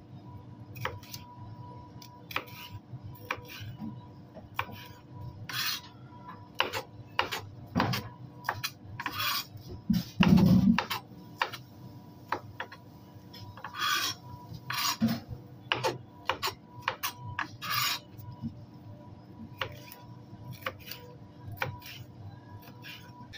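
Knife dicing a red bell pepper on a plastic cutting board: irregular taps of the blade on the board mixed with longer rasping cuts through the pepper flesh, and one heavier thump about ten seconds in. A steady hum runs underneath.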